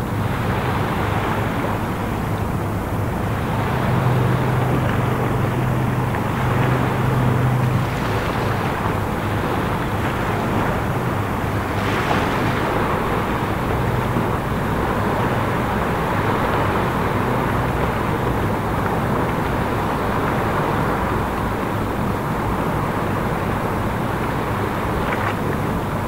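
Flamant-class patrol vessel under way: a steady low engine hum with the rush of its bow wave and wind on the microphone. The hum is a little stronger about four to eight seconds in.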